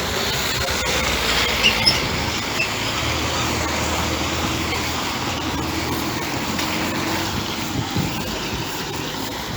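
A train running through a station, a steady noise with a low hum and a few short high squeaks about two seconds in.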